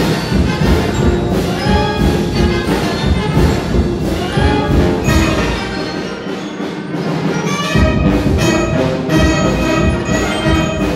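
Brass band of trumpets, trombones and sousaphones with kettle drums playing a Guatemalan son. The low bass drops out for a moment about six seconds in and comes back near eight seconds.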